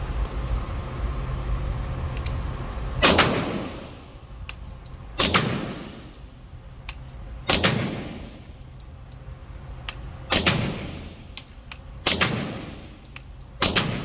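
Suppressed B&T 9mm carbine fired six times in slow single shots, one every two to three seconds, each shot ringing on in the range's echo. A steady low rumble fills the first three seconds.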